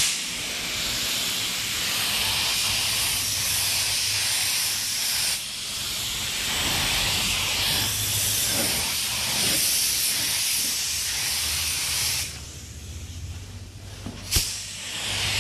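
Astro Euro Pro HE gravity-feed spray gun hissing as it sprays the first coat of base colour onto a car's quarter panel. The spray runs steadily with a brief break, stops about twelve seconds in, and a click follows before it starts again near the end.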